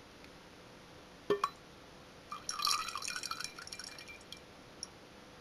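Two sharp clinks of glass about a second in, then for about two seconds the last of a projection CRT's glycerin coolant trickling and dripping into a glass jar as the lens cooler is drained.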